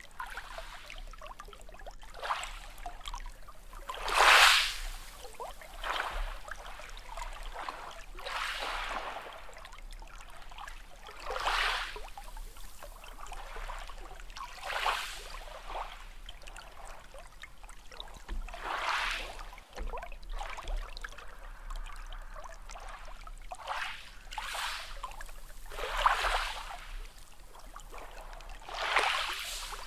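Sea waves washing in, one surge of water noise every three to four seconds, the strongest about four seconds in.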